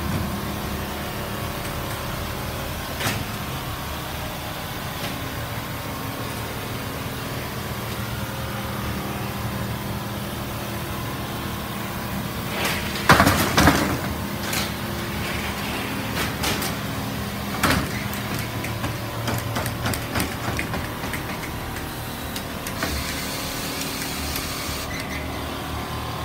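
Steady hum of factory machinery among quilting machines, with a single knock a few seconds in, a louder clatter just past the middle, and another knock a few seconds later.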